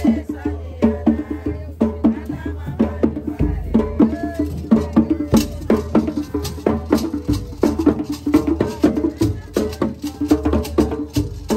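Traditional rope-tuned hand drums with skin heads played in a fast, steady rhythm of sharp strokes, together with a metal rattle.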